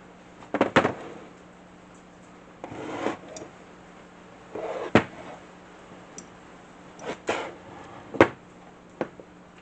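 Parts of a table saw being handled during disassembly: sharp knocks near 1, 5 and 8 seconds in and a smaller one near the end, with short scraping and sliding sounds before several of them.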